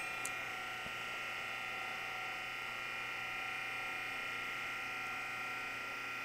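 Powered tube bender running steadily with an even, high-pitched motor whine as it slowly bends 5/8-inch square steel tube.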